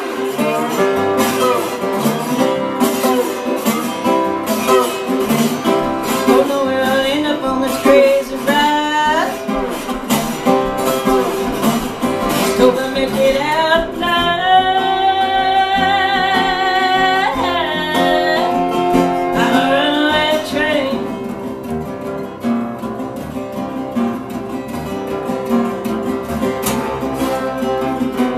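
Metal-bodied resonator guitar playing a blues instrumental break, with sliding, bending notes and a long wavering held note in the middle; the playing gets a little quieter and sparser in the last several seconds.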